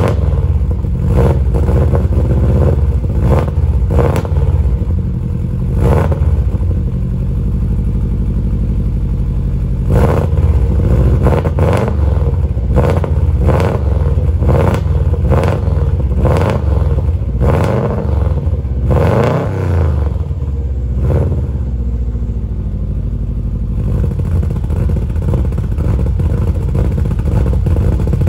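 Subaru Impreza STi RA's turbocharged flat-four idling cold through a Prodrive Group A exhaust back box. Rotational idle from a Link G4+ ECU makes the idle lumpy, with sharp exhaust pops every second or so. The pops stop about 24 seconds in and the idle runs smoother.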